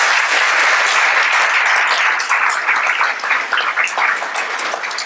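Audience applauding, a dense clapping that thins out into more separate claps in the second half.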